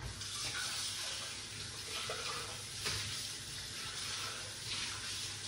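Blended fruit juice draining through a fine mesh strainer into a glass bowl: a steady soft hiss of liquid seeping through the pulp.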